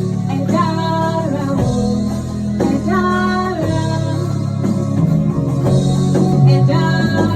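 Music: a sung devotional song with guitar accompaniment, long held notes changing every second or so.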